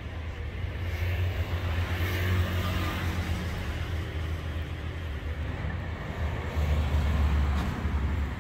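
Street traffic: the low engine rumble of passing vehicles, swelling about a second in and again near the end.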